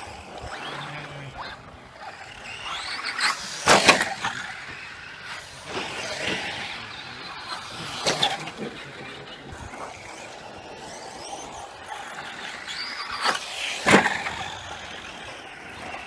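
Brushless electric RC trucks driving past on a dirt track, their motors whining, with three loud close pass-bys about four, eight and fourteen seconds in.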